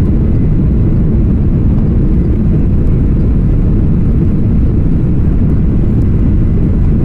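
Jet airliner taking off, heard from inside the passenger cabin: a loud, steady low rumble of engines and airframe.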